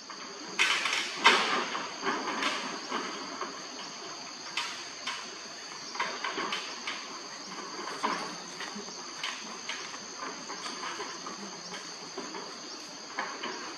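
Steady high-pitched drone of insects in the surrounding trees, with irregular short rustling noises scattered through it, the loudest about a second in.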